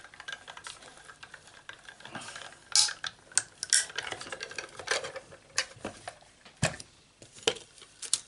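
Sizzix Sidekick hand-cranked die-cutting machine being turned, with faint ticking as the acrylic cutting plates roll through, then a string of sharp plastic clicks and knocks from about three seconds in as the plates come out and are handled.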